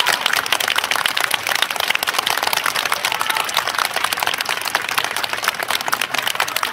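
Crowd applauding, with the steady clapping of many hands.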